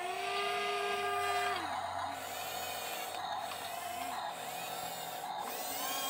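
Small electric drive motors and gearboxes of a toy RC tracked bulldozer whining. The pitch rises as they start, holds, and falls as they stop, several times over a steady underlying tone.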